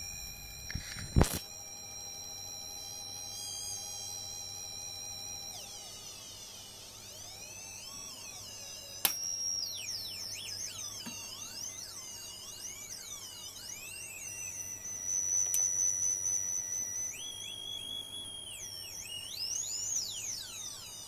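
Sine test tones from an audio signal generator, run through a BOSS ME-10 multi-effects processor under repair, wavering and gliding up and down in pitch under a modulation effect and jumping to new pitches several times. A sharp loud click about a second in and another about nine seconds in.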